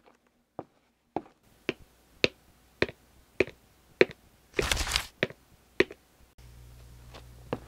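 Footsteps on a hard floor, a sharp click about twice a second. Partway through comes a short rustling scrape, and near the end a low steady hum comes in.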